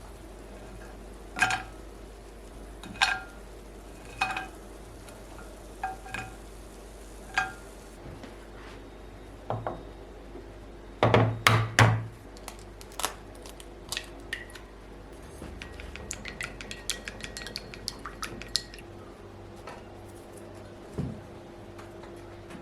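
Dishes being handled and set down: five single ringing clinks about a second and a half apart, a louder clatter about halfway through, then a quick run of light ticks and one dull knock near the end.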